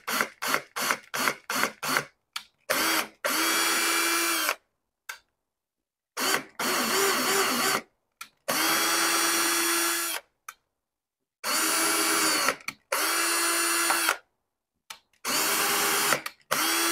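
Cordless drill driving a thread tap into PVC pipe, running in short bursts with a steady motor whine. It starts with quick trigger blips, about three a second, then goes to runs of a second or two, several in back-to-back pairs as the tap is driven in and reversed back out.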